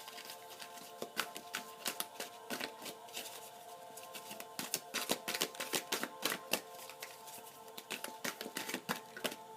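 Soft background music with steady held notes, over a run of irregular light clicks and rustles of tarot cards being handled.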